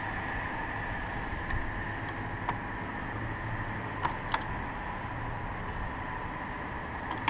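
Steady mechanical hum from the hot Dodge Charger's engine bay. A few light clicks sound as the coolant reservoir's pressure cap is twisted and lifted off to let pressure out of the overheated cooling system.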